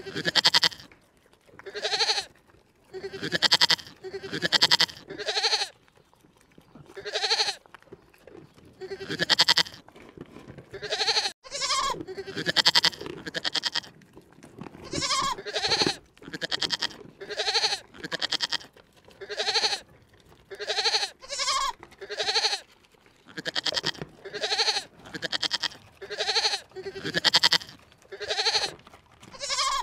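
An animal calling over and over, short calls repeating about once a second.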